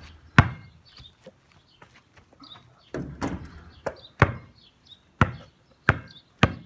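A basketball shot strikes the backboard and rim with a loud bang. A few seconds later the ball bounces on hard ground in single thuds that come quicker toward the end as it is dribbled.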